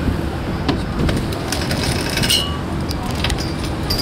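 Steady low rumble of wind on the microphone over a boat's engine while the boat is under way, with a few light clicks and rattles around the middle.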